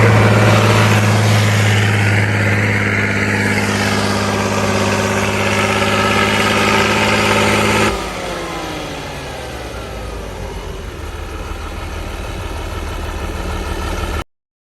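A vehicle engine runs steadily. About eight seconds in, the sound switches abruptly to a quieter engine whose pitch slowly falls, then cuts off shortly before the end.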